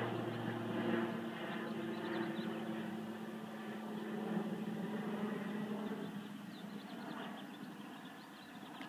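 A steady mechanical engine hum that fades gradually toward the end.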